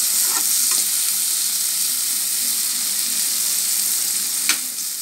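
Potato cubes frying in hot oil with masala, a steady sizzle, while a metal spoon stirs and scrapes them against the pressure cooker's metal pan. A sharp tap of the spoon on the pan just before the end.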